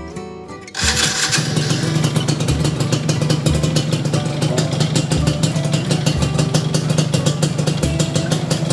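Yamaha F1ZR's two-stroke single-cylinder engine running steadily at idle with a rapid, even buzz through its AHM aftermarket exhaust. It cuts in abruptly about a second in, after a moment of guitar music.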